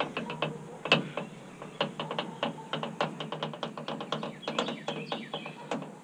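Ratchet clicking in quick, uneven runs, a few clicks a second, as it backs out the long T15 Torx screws that hold the grille.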